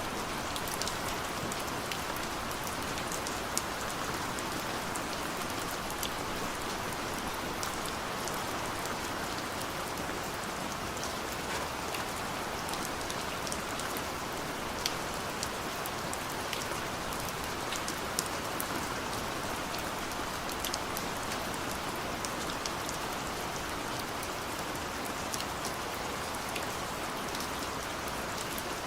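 Steady rain falling, an even hiss with scattered sharp drop ticks and an occasional louder drip.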